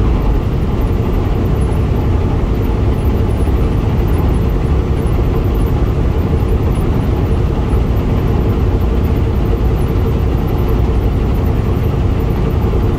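Steady road and engine noise inside a truck cab cruising at about 70 mph on the highway, an even rumble without breaks.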